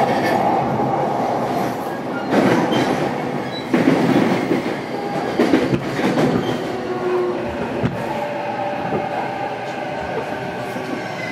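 Interior running sound of a JR East E233 series electric train's motor car. Wheels knock over rail joints several times, under a steady electric whine from the traction equipment.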